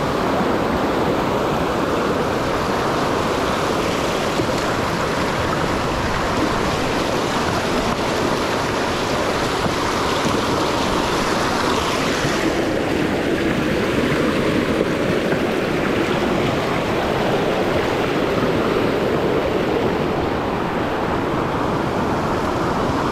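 River rapids rushing over boulders in a fast, rocky stream: a steady whitewater rush.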